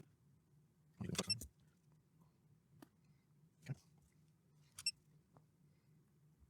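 A few faint, light clicks and taps of small metal hand tools at a soldering bench: a short cluster about a second in, then single ticks roughly a second apart, one with a brief high metallic ring.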